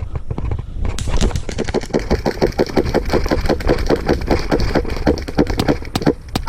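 Rapid, even running footsteps, about five thuds a second with gear jostling, over wind rumble on the microphone. They start about a second in and stop near the end.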